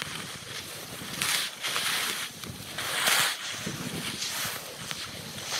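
Skis scraping and swishing over packed snow through a series of turns, a hissing swish about every second, sped up to double speed.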